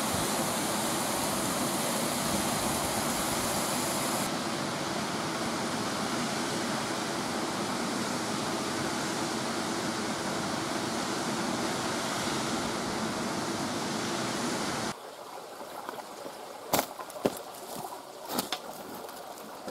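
Water rushing steadily down a dam's sloping face. About fifteen seconds in it cuts off abruptly to a much quieter background with a few sharp clicks.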